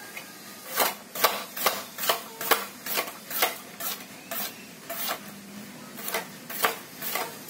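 Hand-operated lever-arm vegetable cutter with a high-carbon steel blade chopping through a raw potato. A crisp chop about twice a second, in an even rhythm, from about a second in until near the end.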